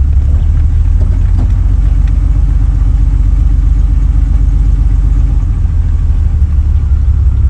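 1988 Jeep Wrangler YJ's 4.2-litre inline-six engine running with a steady low rumble.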